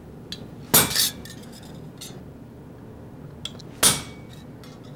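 Small hammer striking a steel design stamp into sheet silver on a steel bench block: two quick metallic blows about a second in and a third near the end, each preceded by a light tick as the stamp is set on the metal.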